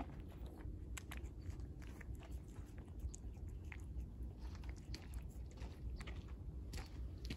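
Calico cat eating wet cat food off the ground close to the microphone: irregular small clicks and smacks of chewing and lapping, over a low steady rumble.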